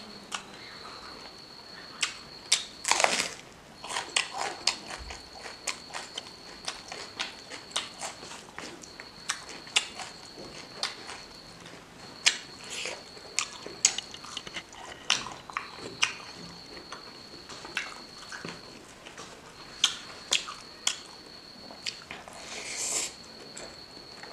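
Close-up chewing of pork and rice eaten by hand: wet mouth clicks, smacks and crackles at an irregular pace. A thin, steady high-pitched whine runs underneath, dropping out briefly and returning several times.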